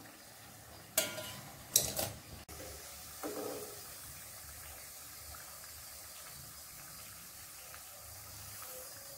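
Hot oil sizzling faintly around chana dal vadas deep-frying in a pan, with two sharp metallic clinks of a steel skimmer against the pan about one and two seconds in and a softer knock shortly after.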